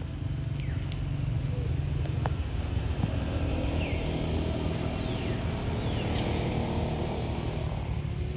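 Low steady rumble of a motor vehicle's engine, fuller from about three seconds in, with a few short, high, falling chirps over it.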